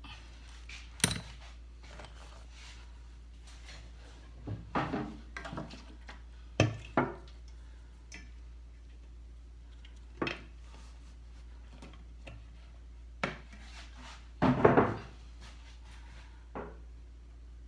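Irregular clicks, knocks and clatters of small tools and parts being picked up and set down on a repair bench, busiest a little past halfway, over a steady low hum.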